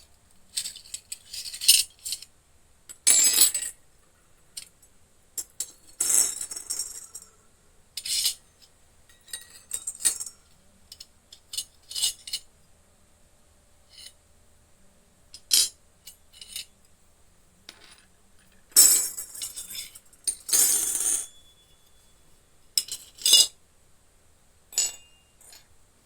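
Pieces of a miniature toy cooking set being handled and set down: irregular clinks, taps and rustles in short bursts, with quiet gaps between them.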